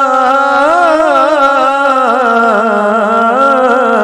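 A man singing Punjabi Sufi kalam, drawing out one long held note with quick wavering ornaments that sinks slowly in pitch in the second half.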